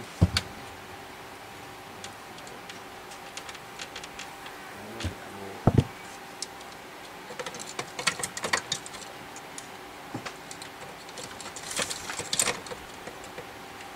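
Scattered clicks and knocks of plastic and metal parts being handled on the gear drive assembly of an opened HP 5200 A3 printer, with a louder thump near the start and another about halfway, and quick runs of clicks later on. A faint steady hum runs underneath.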